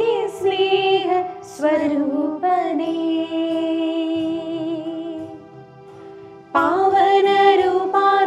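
A woman singing a slow Malayalam devotional hymn calling on the Holy Spirit, over electronic keyboard accompaniment. A long note held with vibrato fades away about five seconds in, and the singing comes back in about a second and a half later.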